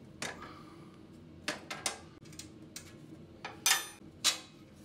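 Small metal fasteners clicking and clinking as the linkage rod is undone from an industrial sewing machine's treadle pedal: a scatter of light clicks, then two sharper clinks near the end, the first with a brief metallic ring.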